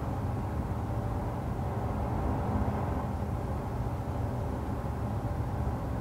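A steady low rumble, like heavy machinery or a vehicle engine heard at a distance, with a faint steady hum in it.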